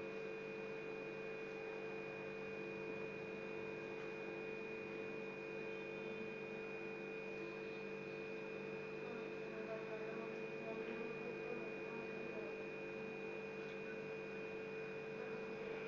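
Steady, faint electrical hum made of several fixed tones, with no other clear sound.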